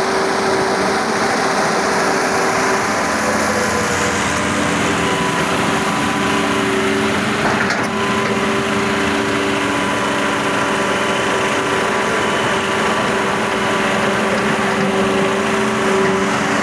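Excavator engine running steadily, with a constant hum whose tones shift slightly from moment to moment.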